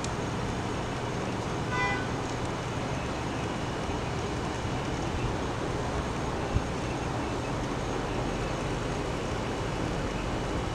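Lego Power Functions electric motor running steadily, driving the Technic crane's gears. There is a brief high-pitched squeak about two seconds in and a single sharp click near the middle.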